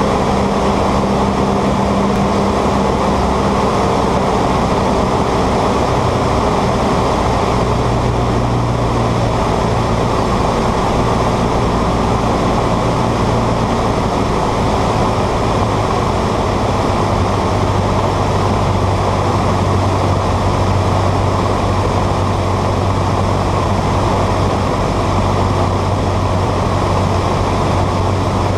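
Cessna 152's four-cylinder Lycoming engine and two-blade propeller drone loudly and steadily inside the small cockpit. The pitch drops a step about six seconds in and again about seventeen seconds in, as power is reduced on the descent to land.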